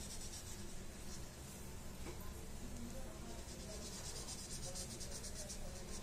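Faint scratching of a crayon on paper, colouring in small shapes with quick back-and-forth strokes.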